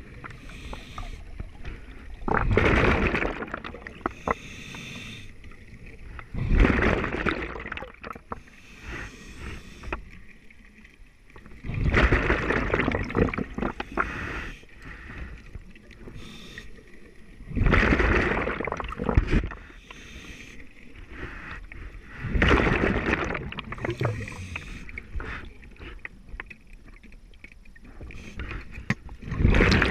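A scuba diver breathing underwater: a rush of exhaled bubbles about every five seconds, each lasting a second or two, with quieter hiss in between.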